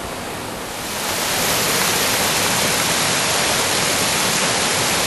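Rushing whitewater of river rapids: a steady hiss that grows louder about a second in.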